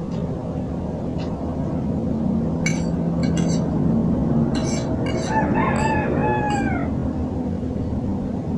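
A rooster crows once in the background about five seconds in: a single call of about a second and a half that drops in pitch at its end. Under it runs a steady low rumble, with a few short clicks of a metal fork against a plate.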